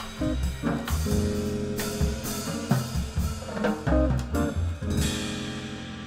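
Jazz quartet of guitar, keyboard, drums and upright bass playing a rhythmic passage with drum hits. About five seconds in it lands on a final held chord that rings out and fades.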